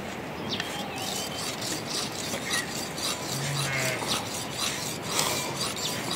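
A curved steel blade being sharpened on a rock: rhythmic scraping strokes, about three a second.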